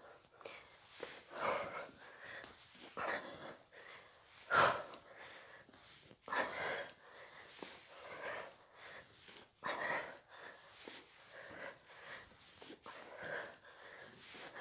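A woman breathing hard and panting from exertion, loud breaths coming about every one and a half seconds, with faint taps of trainers on the floor between them.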